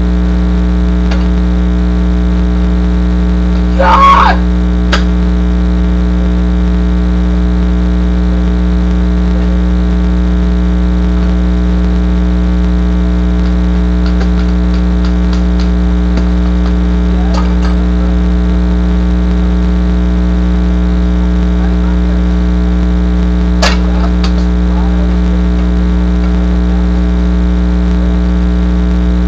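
Steady, loud electrical hum throughout, with one short loud voice-like shout about four seconds in and a few faint wooden knocks and clacks scattered later.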